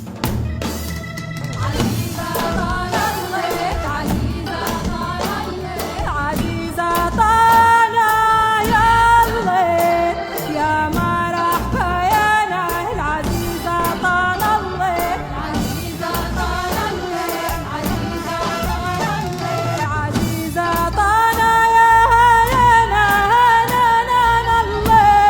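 Song in Tunisian Arabic dialect: a solo voice sings an ornamented, sliding melody over steady drum percussion, getting louder near the end.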